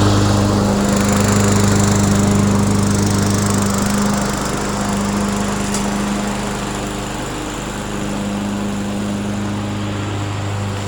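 Murray self-propelled 22-inch walk-behind lawn mower engine running at a steady speed, somewhat fainter in the middle of the stretch and stronger again later.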